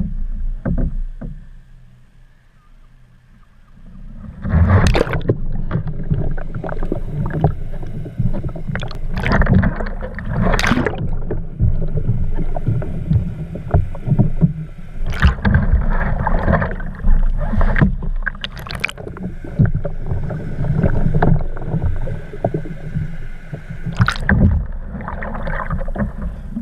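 Water splashing and churning around a sea kayak as the paddler capsizes and rolls it in an Eskimo roll, irregular and loud from about four seconds in. Part of it is heard with the deck camera under water, over a heavy low rumble.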